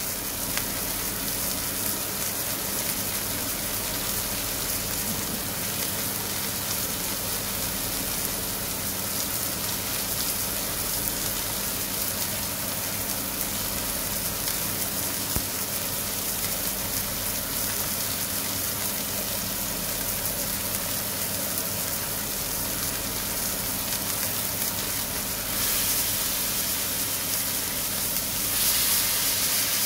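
Beef mince patties sizzling in a hot non-stick frying pan: a steady, dense hiss like rain. Near the end the sizzle gets louder as a spatula goes in under a patty.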